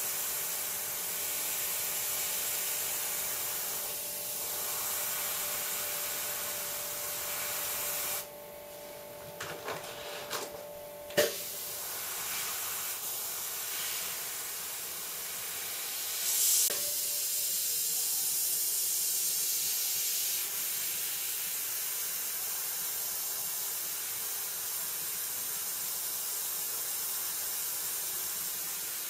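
Airbrush spraying paint, a steady high hiss of compressed air. The hiss stops for about three seconds a little before the middle, with a few small clicks and one sharp click, then resumes, with a brief louder spurt soon after.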